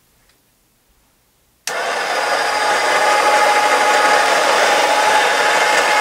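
Gaggia MDF flat-burr doser grinder switched on about two seconds in and running, grinding coffee beans. Its motor starts abruptly and runs loud and steady, with a steady whine over the grinding noise.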